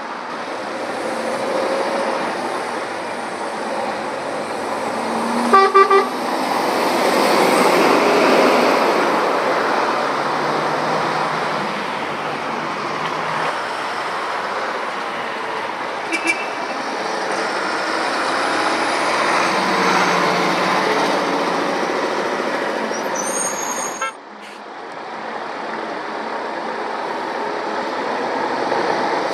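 Lorries passing along the road, their engine and tyre noise swelling and fading twice. About six seconds in, a horn gives two short toots.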